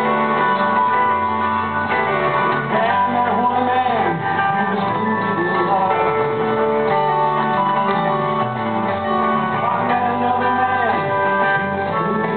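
Live rock band playing a mostly instrumental passage with a lead guitar, heard from far back in the audience through a phone-quality recording.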